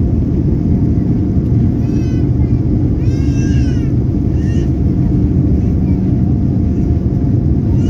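Jet airliner cabin noise: a steady low engine and rolling rumble as the plane moves along the runway. A few short, high-pitched wavering cries sound over it, about two seconds in, between three and four seconds, and just after four seconds.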